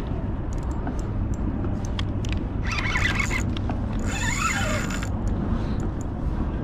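Steady low rumble of wind buffeting an action camera's microphone, with two short higher-pitched sounds about three and four seconds in.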